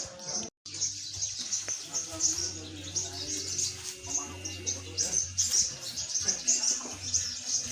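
Caged songbirds chirping and trilling in quick high bursts, several birds at once. A low hum comes and goes underneath, and the sound cuts out completely for a moment about half a second in.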